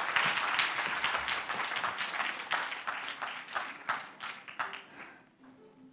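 Applause from a small audience, a patter of hand claps that thins out and fades away near the end.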